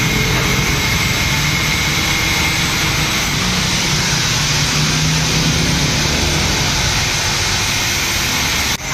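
Steady, loud machine noise with a faint high whine running through it, dropping out briefly near the end.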